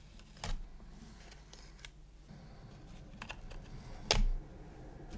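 Light clicks and taps of metal tweezers and a plastic model wing being handled while masking tape is lifted off, with a sharper click about half a second in and the loudest about four seconds in.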